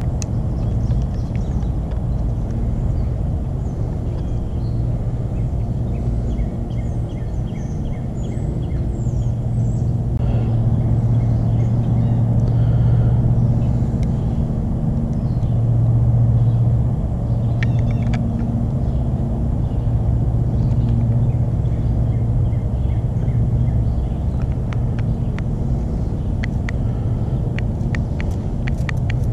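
A steady low engine drone that swells and eases a little, with a few light clicks of small parts and a screwdriver being handled near the end.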